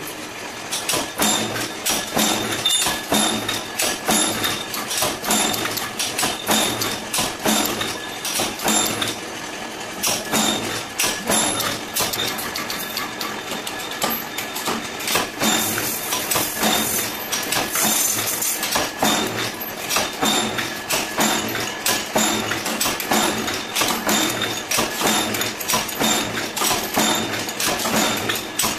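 A 10-ton mechanical power press punching out small metal pieces, stroke after stroke: a rapid, steady run of sharp clanks over the running hum of its motor and flywheel. The strokes pause briefly about ten seconds in.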